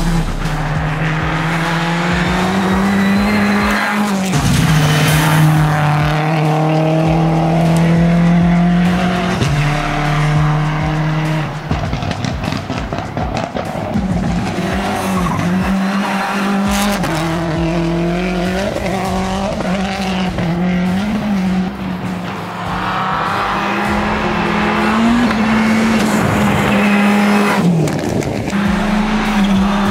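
Audi rally car driven hard at high revs, the engine note holding and then stepping down or dipping several times at gear changes and lifts, with tyres skidding on loose gravel.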